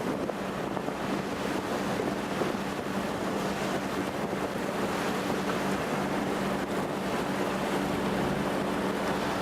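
Fishing boat's engine running steadily, a low even hum under a rush of wind and sea noise, with wind on the microphone.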